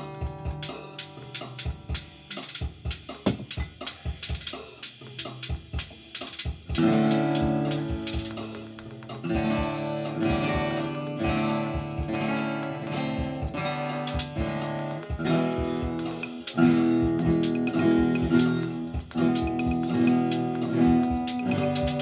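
Guitar music: picked single notes for the first several seconds, then fuller strummed chords from about seven seconds in.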